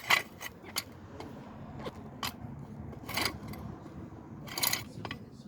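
Sharp metallic clinks and clanks of hand tools and brake caliper parts being handled, about eight at uneven intervals, over a low steady background noise.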